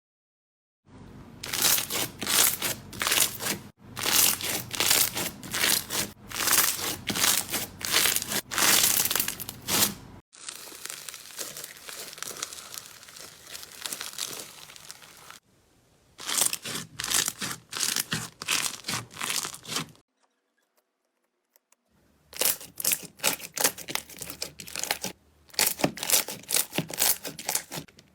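Slime being squeezed, pressed and stretched by hand, giving runs of rapid crackling and popping clicks, in several separate short takes. In the middle stretch the sound is a softer, steadier hiss, and there is a brief silent break about two-thirds of the way through.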